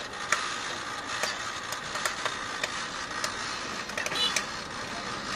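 Popcorn cart machine running with a steady hiss, with irregular sharp clicks and the rustle of popcorn being scooped from its tray.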